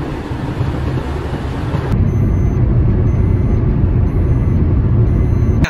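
Steady road and engine noise of a moving car, heard from inside the cabin, growing louder about two seconds in.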